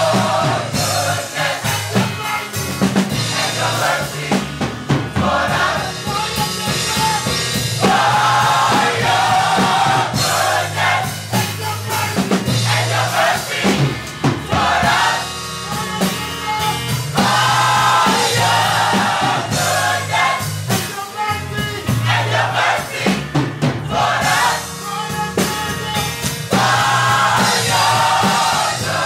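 Gospel mass choir singing with a band, the drum kit keeping a steady beat under sung phrases that repeat every few seconds.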